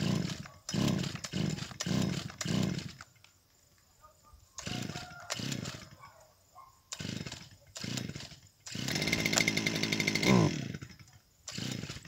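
Small petrol engine of a grass-cutting machine being pull-started: a long series of short pulls on the recoil cord, each a brief burst of the engine turning over. About nine seconds in it catches and runs for under two seconds, revs up and dies, and then the short pulls start again.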